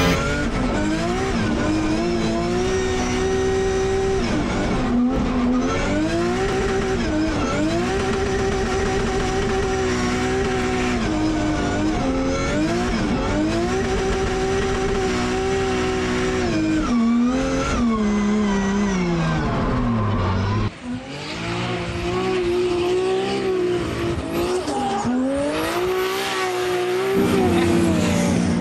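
Nissan S15 drift car's 2JZ straight-six at high revs under full power, its note held high and repeatedly dipping and climbing again every few seconds, with tyre squeal. Heard from inside the cabin for most of it; near the end the car is heard from the trackside.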